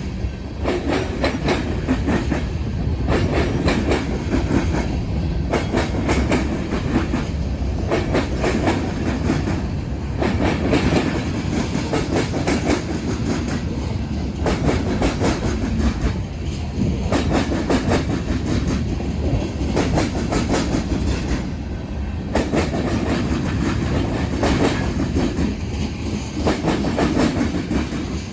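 A BNSF freight train's cars rolling over a railroad diamond crossing, their wheels clattering in a steady run of rapid clicks and bangs as car after car goes by.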